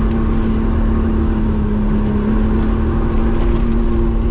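2006 Jeep Wrangler TJ's engine running at a steady pitch as it drives along a sandy track, a constant drone over a heavy low rumble.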